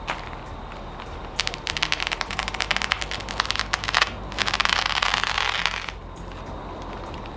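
Utility knife cutting a crinkly black plastic sheet: a couple of seconds of rapid crackling, then a smoother hissing slice of about a second and a half that stops about six seconds in.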